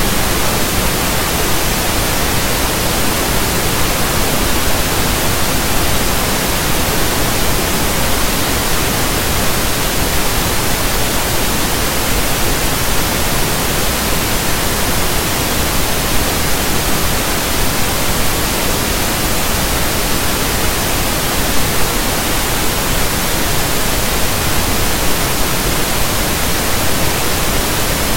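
Steady, loud static hiss, even and unchanging, with nothing else in it: electronic noise on the screen recording's audio track.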